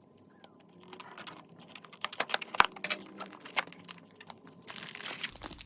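Hands handling and opening the packaging of a new dimmer switch: a run of light clicks and taps, then a crinkling rustle of packaging starting near the end.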